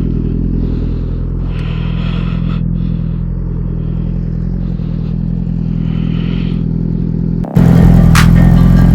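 Suzuki GSX-R1000R inline-four motorcycle engine running at a steady, even pitch. Near the end the sound jumps abruptly to a louder level.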